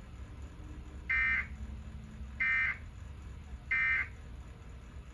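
Three short bursts of Emergency Alert System digital data tones (the SAME end-of-message code), evenly spaced about a second apart, marking the end of the alert broadcast.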